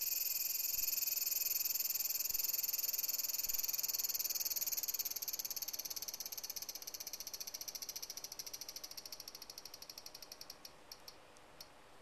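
A cicada singing: a loud, continuous high buzz that, about five seconds in, breaks into rapid pulses that slow and fade as the song winds down, with a few last clicks near the end.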